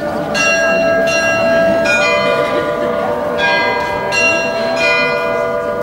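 Tower glockenspiel of tuned bells playing a slow tune, a new bell struck about once a second at changing pitches, each note ringing on under the next.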